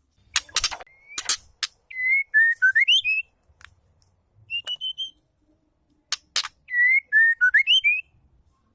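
White-rumped shama calling: a few sharp, harsh clicks followed by a clear whistled phrase that dips and then slides up. The same sequence comes twice, with a short rising whistle in between.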